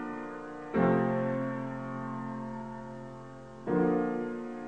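Slow piano music: sustained chords, a new one struck about a second in and another near the end, each left to ring and fade.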